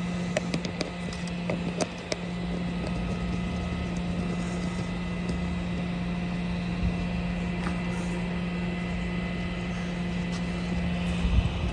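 Tow truck's engine idling steadily, a constant even hum, with a few light clicks and knocks in the first two seconds.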